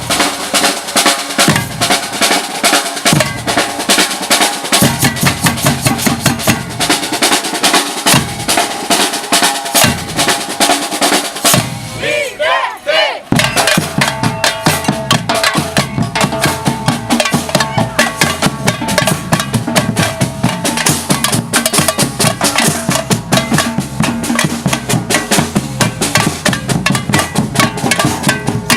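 Batucada percussion group drumming a fast, dense rhythm, with a short break about twelve seconds in before the drums come back in together.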